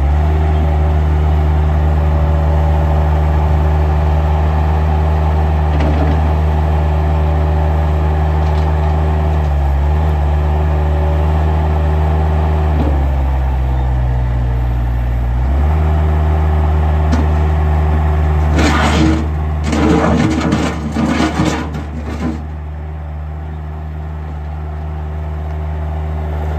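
2002 Bobcat skid steer loader's engine running steadily. Its pitch dips for a couple of seconds midway, then recovers. A cluster of loud knocks and metallic clatter comes about two-thirds of the way through.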